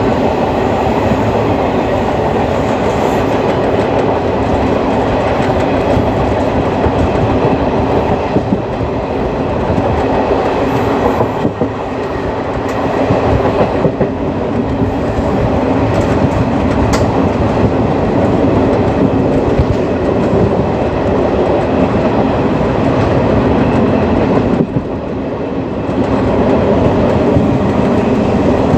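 Indian Railways ICF passenger coach running on the track: a steady rumble of the wheels with clickety-clack from the rail joints, briefly quieter near the end.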